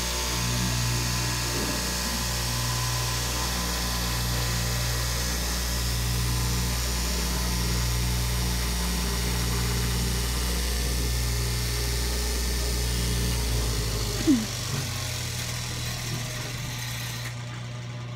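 Electric straight-knife cloth cutting machine running with a steady, pulsing motor hum as its vertical blade cuts through layered knit fabric. About fourteen seconds in there is a sharp click and the lowest part of the hum drops away.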